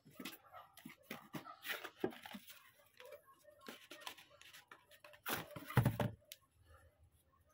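Rustling and crinkling of a cardboard box and a wrapping bag being handled while a guitar effects pedal is unboxed, in short irregular bursts. A louder burst of rustling with a low thump comes a little past the middle.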